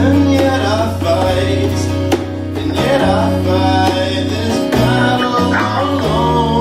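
Live acoustic band playing: acoustic guitars strummed, a djembe struck by hand in a steady rhythm, and a man singing.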